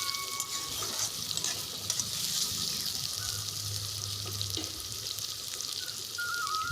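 Chopped onions sizzling in hot butter in a kadai (wok), a steady frying hiss with a few light clicks.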